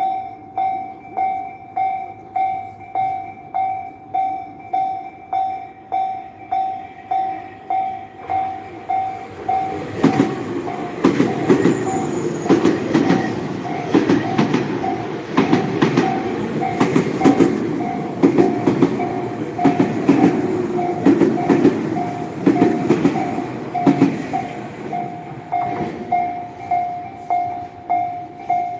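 Japanese railroad crossing warning bell ringing in a steady repeating 'kan-kan', about one and a half strikes a second. About ten seconds in, a train runs through the crossing with a loud rumble and wheels clacking over the rail joints. It has passed by about twenty-four seconds in, while the bell keeps ringing.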